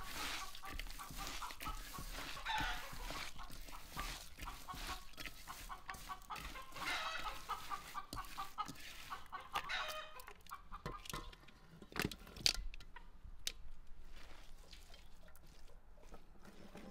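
Chickens clucking over and over, the calls thinning out after about ten seconds. Then quieter, squelchy crunching of hands kneading chopped onion in a bowl, with scattered sharp clicks.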